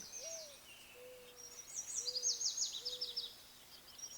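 Birds chirping: a run of quick, high, downward-sweeping chirps in the middle, with a few faint, short, low whistles.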